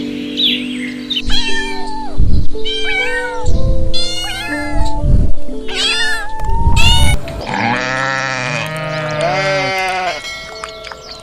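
A cat meowing five times in quick succession, followed by three lower, longer bleats, over background music with a low beat.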